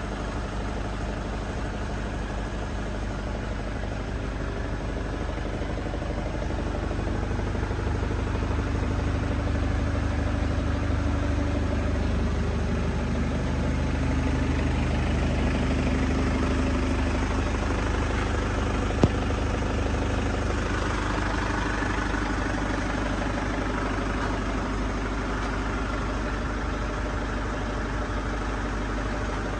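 Vehicle engine idling steadily, with one sharp click about two-thirds of the way through.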